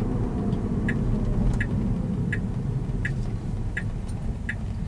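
Tesla's turn-signal indicator ticking steadily for a right turn, about three ticks every two seconds, starting about a second in. Underneath is the low tyre and road rumble heard inside the cabin as the car slows.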